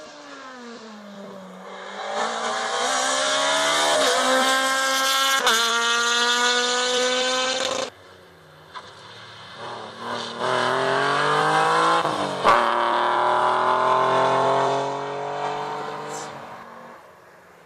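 Rally car engine accelerating hard through the gears, the pitch climbing and dropping back at each upshift, then cutting off abruptly. A second rally car then accelerates through its gears the same way and fades away.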